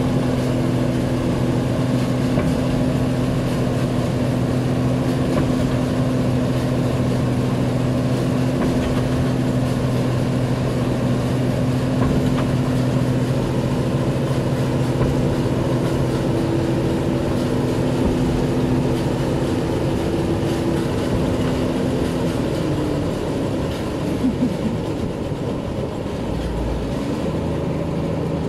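New Holland 8070 combine harvester's diesel engine running hard with its half-tracks churning and rattling in deep mud. The engine note holds steady, then bends and drops lower about twenty-two seconds in.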